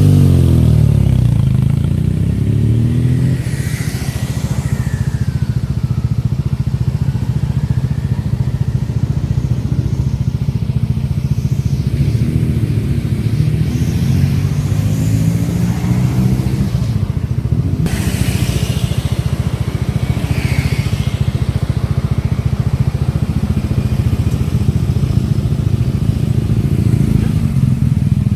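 BMW R nineT's air/oil-cooled boxer twin on its stock exhaust, running at idle, with the revs rising and falling a few times.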